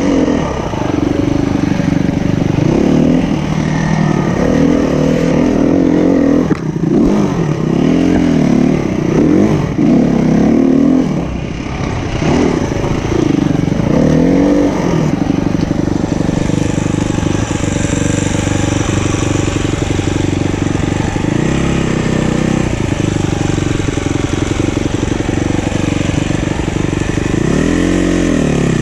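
SWM 300RS enduro motorcycle engine being ridden off-road, revving up and down again and again as the throttle is opened and closed, with a strong rev near the end.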